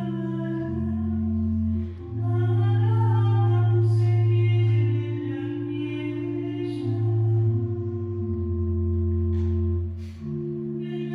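A church hymn sung to sustained organ chords, the low held notes changing every second or two, with short breaks between phrases.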